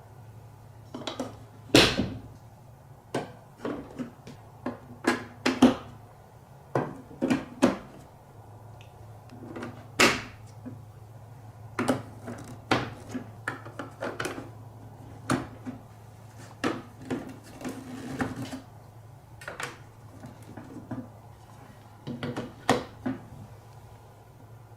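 Marbles rolling and dropping through a colorful block marble run, making irregular clacks and knocks as they hit the blocks, over a faint low steady hum.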